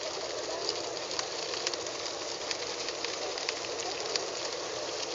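A motorboat running on open water: a steady wash of engine and water noise, with scattered small sharp ticks.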